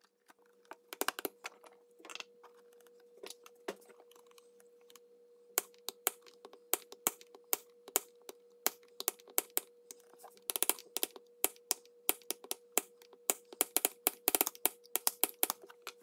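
Small hammer tapping brads into the back of an oak picture frame to hold the hardboard backer in place. A few taps come near the start, then a steady run of light, quick taps, several a second, from about five seconds in.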